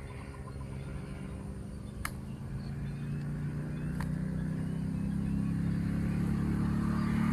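A motor vehicle's engine running and growing steadily louder as it approaches. Two sharp clicks sound about two and four seconds in.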